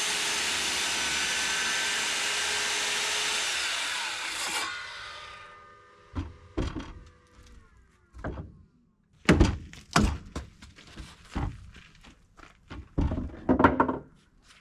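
An electric power saw runs through a wood cut for about four seconds, then its motor winds down with a falling whine. It is followed by a string of sharp wooden knocks and thunks.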